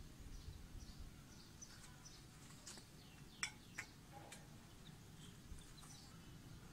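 Near silence with faint bird chirps, and three light clicks about halfway through as a small plastic cap is pressed onto the end of a steel tube.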